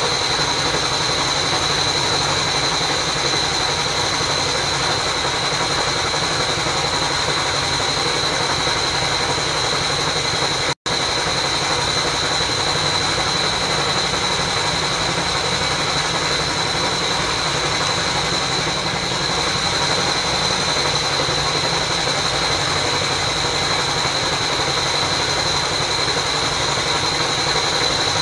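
Water pump motor running steadily, filling the pool through a hose, with a constant high whine over the drone. The sound drops out for an instant about eleven seconds in.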